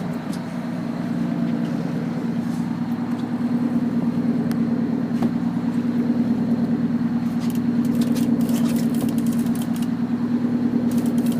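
A fishing boat's engine running steadily, a low even drone with some wash and wind noise over it.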